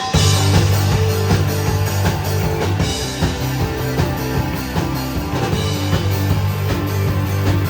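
Rock band playing live at full volume: drum kit, bass and electric guitars in a steady driving groove.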